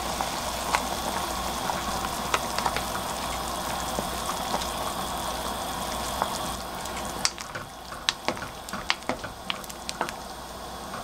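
A steel pot of soup with radish and tofu at a rolling boil, giving a steady bubbling hiss. About seven seconds in, the hiss drops and a wooden spoon stirs the pot, with a run of light clicks and knocks.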